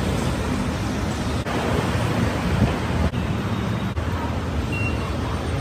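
Steady rumble of wind on the microphone over street traffic. Near the end comes a short high beep, the ticket machine's touchscreen answering a press.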